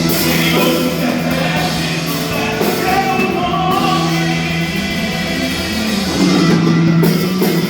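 Brazilian worship song with a held sung melody over a rock-style band with electric guitar, swelling a little louder near the end.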